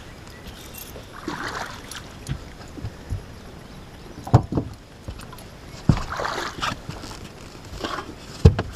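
Water splashing and sloshing at the side of a fishing boat as a netted musky is held in a landing net at the gunnel, with several sharp knocks on the boat.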